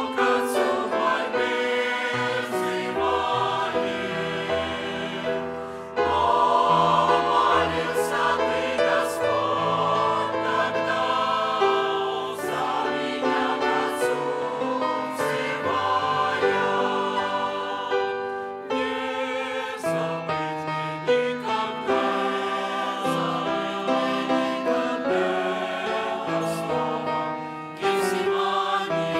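Mixed choir of men's and women's voices singing a Russian-language hymn in harmony, with piano accompaniment, phrase after phrase with brief breaths between them.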